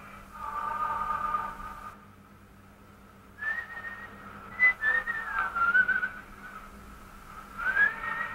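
A tune being whistled. A steady held note comes first, then a short pause, then notes gliding up and down, and a rising note near the end.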